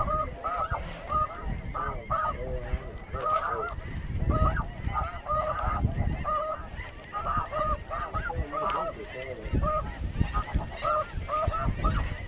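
A chorus of snow goose calls: many short, high, yelping calls repeating and overlapping throughout. Wind rumbles on the microphone underneath.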